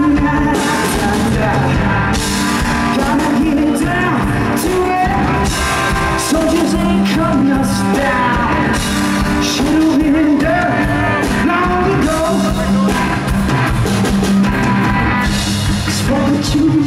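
A garage-rock duo playing live: drum kit, electric guitar and singing, loud and continuous.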